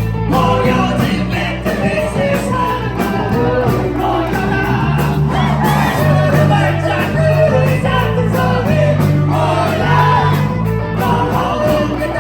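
Indie rock band playing live: a sung vocal melody over held bass notes and a steady drum beat.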